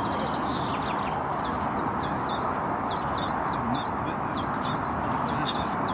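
A small bird calling with a long series of short, high chirps, about two or three a second, over a steady outdoor rush.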